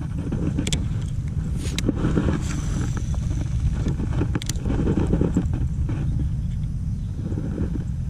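Low rumble of wind and handling noise on the microphone, with four sharp clicks over the first few seconds as a Shimano Calcutta Conquest 51 baitcasting reel is handled.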